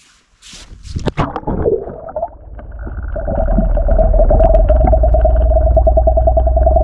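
A camera going under the river's surface: splashing knocks about a second in, then the muffled underwater sound of the current, a low rumble with a steady pulsing hum that grows louder and holds.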